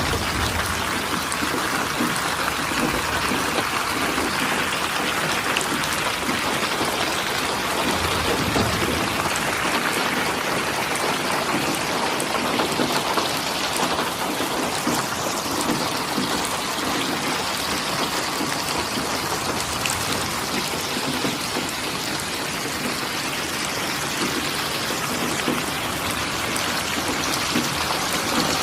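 Steady rain falling, an even hiss of drops on a surface with no thunder.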